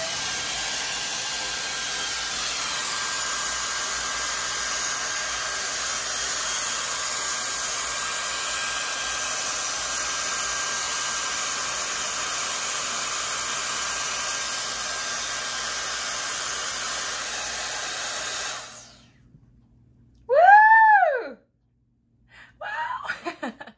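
StyleWrap 4-in-1 dryer brush blowing air steadily through its curling barrel, a rushing hiss with a faint steady whine; it switches off about 19 seconds in. A short high-pitched exclamation rises and falls about two seconds later, and a few softer vocal sounds follow near the end.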